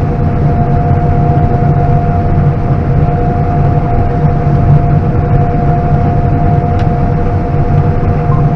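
John Deere S670 combine running, heard from inside the cab: a steady low drone with two steady whining tones over it.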